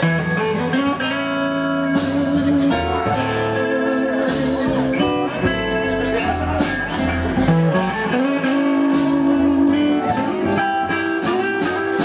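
Live blues band playing an instrumental break: electric guitar lead with held and bending notes over upright bass and drums.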